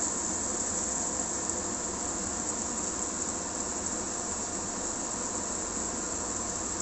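Eggs frying in a hot pan of sautéed onion and tomato: a steady, even sizzle.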